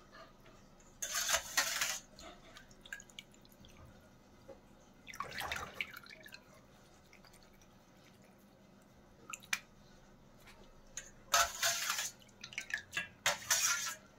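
Water splashing and dripping off a wire mesh skimmer as boiled macaroni is scooped out of a steel bowl of cold water and drained, in four short splashy bursts with a few light clicks between.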